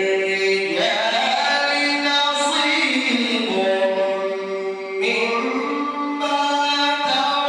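A man's voice in chanted Quran recitation, holding long ornamented notes whose pitch bends and steps up and down, with a brief dip for breath about five seconds in.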